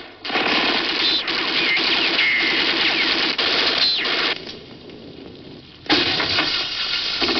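Action-film soundtrack: dense gunfire and crashing effects with thin whistling lines over them. It drops to a quieter stretch a little past halfway, then a sudden loud bang about six seconds in sets off more action noise.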